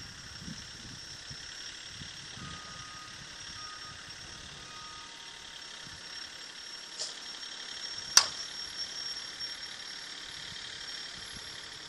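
Resmondo slowpitch softball bat hitting a softball off a batting tee: one sharp crack about eight seconds in.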